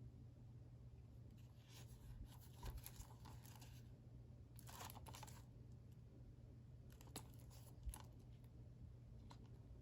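Plastic wrapping on a Blu-ray case being torn and crinkled in three short, faint bursts, with a few small clicks of the case being handled.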